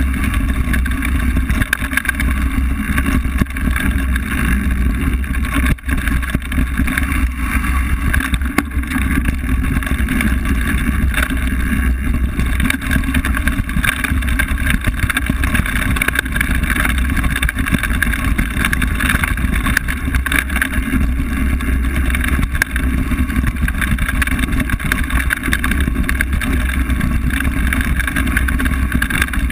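Steady riding noise of a mountain bike on a dirt and gravel forest trail: wind buffeting the camera microphone over tyre rumble and rattle, heaviest in the low end and continuous throughout.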